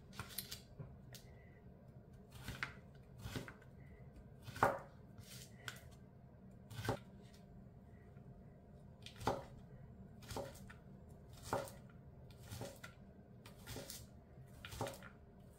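Chef's knife slicing and dicing radishes on a plastic cutting board: separate, irregular knife strikes on the board, roughly one a second.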